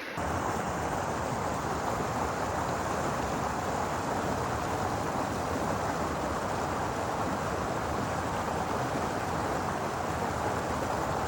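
Steady rush of flowing river water from the Pecos River, starting and stopping abruptly.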